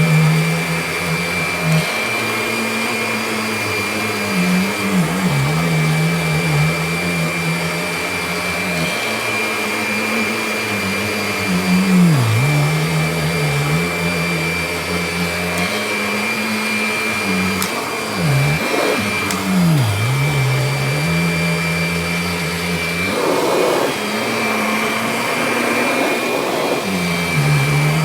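Kirby Diamond Edition upright vacuum cleaner running steadily while vacuuming a rug, a motor hum with a high whine on top. The hum dips briefly in pitch several times as the motor is loaded.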